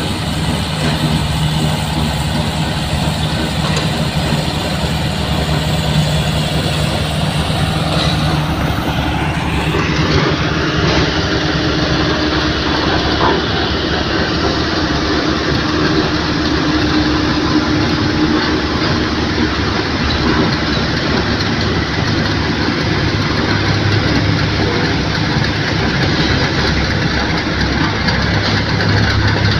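Motor vehicle engines running steadily, with a low engine hum whose pitch shifts a few times.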